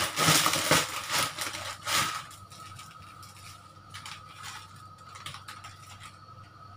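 Dry rice vermicelli (bee hoon) crackling and rustling as the brittle block is handled and pushed into a wok of boiling water, loudest in the first two seconds. Then it goes quieter, with a few light clicks over a faint steady tone.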